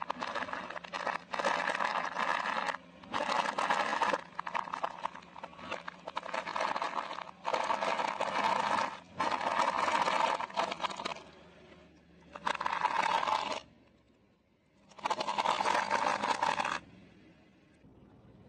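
Pistachio shells cracking and crunching under a car tyre, in a run of short bursts of crackling that start and stop abruptly.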